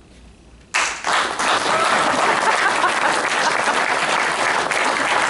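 Audience applauding, starting suddenly just under a second in and going on steadily.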